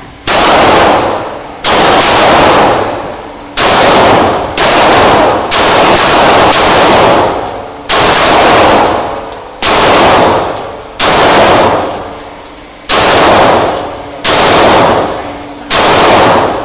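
Glock 9mm pistol fired in about a dozen single shots at an uneven pace, roughly one to two seconds apart, each shot loud and ringing out for about a second before the next.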